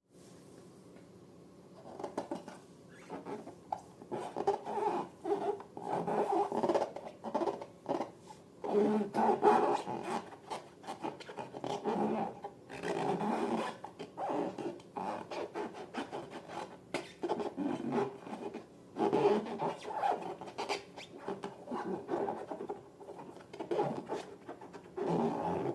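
Slime and balloons being handled by hand: irregular rubbing, scraping and squishing noises in quick bursts, starting about two seconds in.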